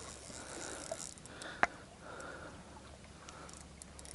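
A person breathing close to the microphone in soft, uneven puffs while fighting a fish on rod and reel, with one sharp click about one and a half seconds in.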